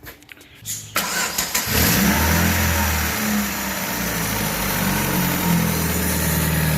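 2015 Chevrolet Aveo four-cylinder engine cranked by the starter about a second in, catching with a brief rev and settling into a steady idle. Its timing belt has just been retensioned, and it runs without the knocking it made when the slack belt slapped its cover.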